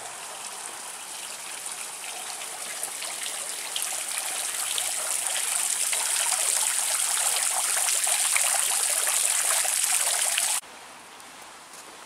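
Water from a small tiered stone fountain splashing and trickling into its round basin, a steady hiss that grows louder as it comes closer. It cuts off suddenly near the end.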